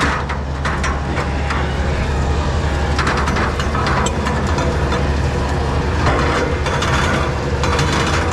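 Fire engine's heavy engine running steadily with a deep rumble, under scattered cracks and a few short bursts of hiss.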